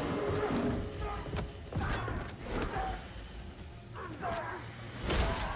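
Irregular mechanical clattering and creaking in a horror film's sound track, several sharp strokes a second or so apart, with a few short gasping vocal sounds between them.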